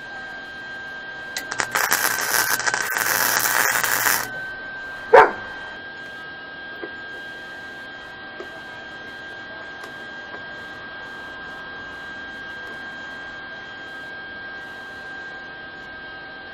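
MIG welder arc crackling for about three seconds as a weld is laid on a steel chain link, followed a second later by one short sharp sound that drops in pitch. A steady high whine sits underneath.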